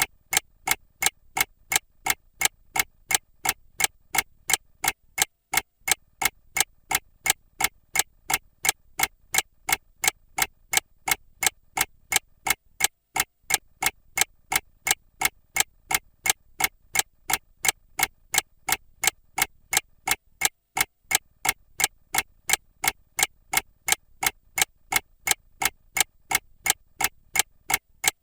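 Mechanical clock ticking at a steady, even rate of about two ticks a second.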